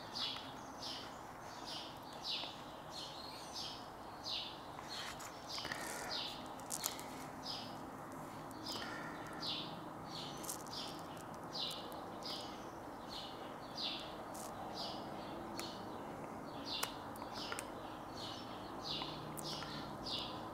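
A bird chirping over and over, short high chirps about two or three a second, faint and steady. There are a few faint clicks from handling.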